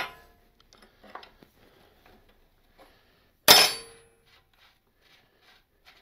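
Steel wrench working the rear axle nut of a 1970 Honda CL350: a few faint clicks and taps as the nut is turned, then one loud metallic clang with a short ring about three and a half seconds in.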